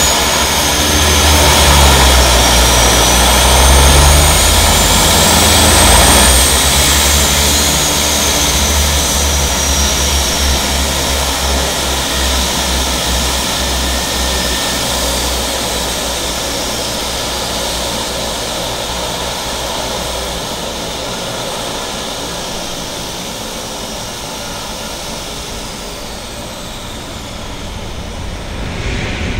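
Twin-engine turboprop floatplane taxiing away across the water: a low propeller drone with a high turbine whine that slides up and down in pitch. Loud at first, then fading steadily from about six seconds in as the plane moves off.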